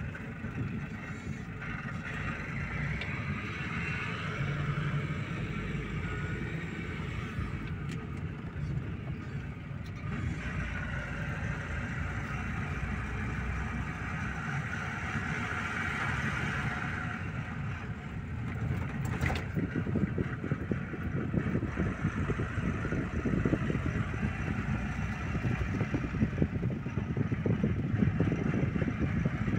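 A car driving, heard from inside the cabin: a steady low engine and road rumble with a hiss of tyre and air noise. It grows rougher and louder over the last third, with a single click about two-thirds through.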